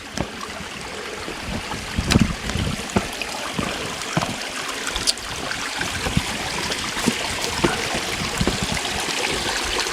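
A creek running, its steady rush growing louder, with scattered footstep knocks and crackles on a steep slope, the loudest about two seconds in.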